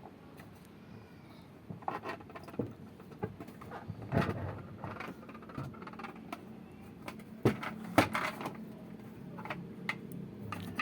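Scattered clicks and knocks of hands and tools working on washing-machine parts, irregular, with two sharp knocks close together a little past the middle.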